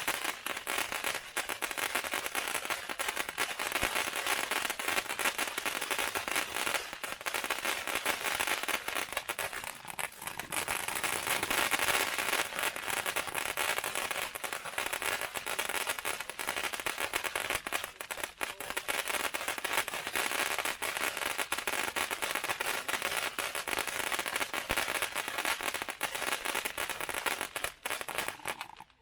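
A firework ground fountain spraying sparks, with a dense, continuous crackling. The crackling dies out just before the end.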